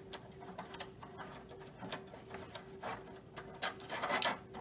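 Pliers gripping and working a thin metal holding band off a wooden bucket: irregular small clicks and scrapes of metal against wood, with the loudest cluster near the end.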